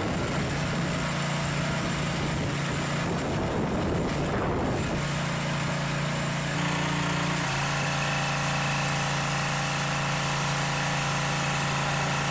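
Small gasoline engine of a pressure washer running at a steady speed. For the first five seconds or so a hissing noise lies over it, after which the engine's hum is heard on its own.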